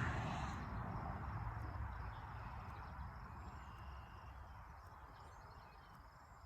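Crickets chirping faintly while a low rushing noise fades away over several seconds.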